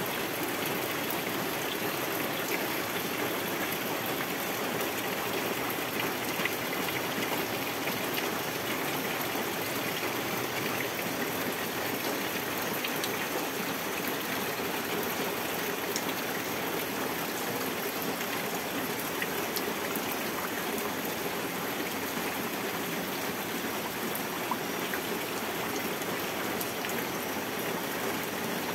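Steady rain falling on foliage and into standing water: a constant hiss with scattered sharp drop ticks.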